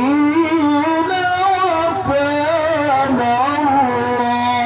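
Male qari reciting the Quran in the melodic tilawah style into a microphone, holding long ornamented notes that step up and down in pitch.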